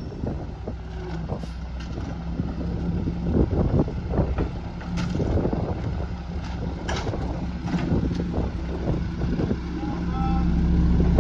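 Idling diesel engine of a Mack MR rear-loader garbage truck, with irregular bangs and clatter as trash cans are emptied into the rear hopper. The engine grows louder near the end.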